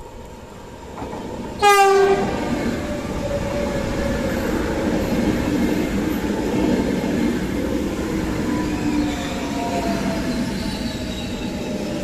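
CP Alfa Pendular electric tilting train sounding one short horn blast, a driver's greeting, about two seconds in. It then passes close by with a steady rumble of wheels on the rails, and a faint tone slides down in pitch near the end.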